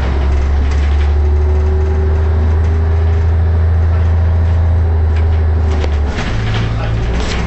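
Leyland Titan double-decker bus engine running with a steady low drone. Its note changes about six seconds in, with a few light clicks around then.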